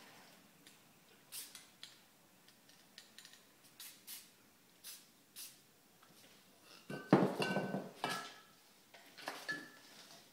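Short hisses of an aerosol spray-paint can sprayed in quick taps, then about seven seconds in a louder metallic clatter with a brief ringing, like a can knocking against other spray cans.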